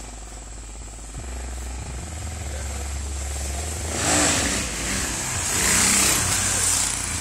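Dirt bike engine approaching and passing close by, growing louder, with loud swells about four seconds in and again around six seconds in as it goes past.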